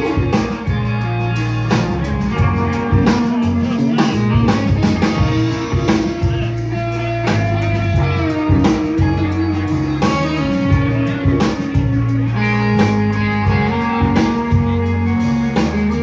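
Live rock band playing an instrumental passage: electric guitars and bass guitar over a drum kit, with no vocals.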